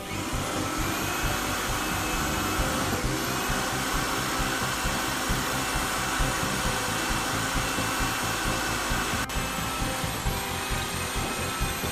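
Handheld electric drill running steadily, pressed into a wooden stair tread, its motor whine sagging briefly in pitch twice as it bogs under load and recovers.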